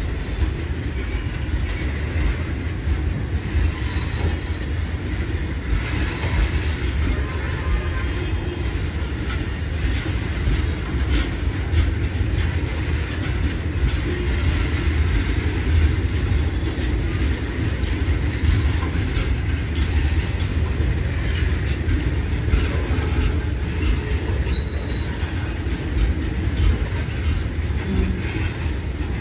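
Freight train of steel tank wagons rolling past close by: a steady rumble of wheels on rail, with repeated clicking as the wheels cross the rail joints.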